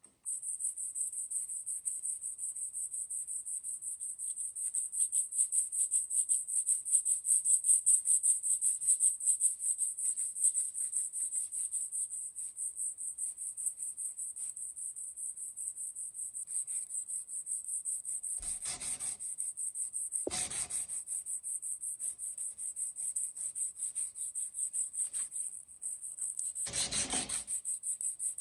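Rapid, even back-and-forth strokes of abrasive hand rubbing on the rusted steel of an old survival knife, as in hand sanding of rust. About two-thirds through and again near the end come three brief duller thumps.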